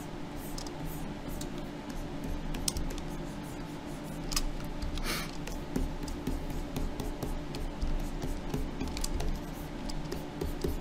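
Scattered light clicks of a computer keyboard and mouse, over a steady low hum, with a short soft hiss about five seconds in.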